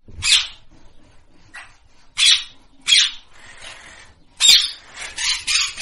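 Rose-ringed parakeet giving short, harsh squawks: single calls about a second apart at first, coming faster and running together near the end.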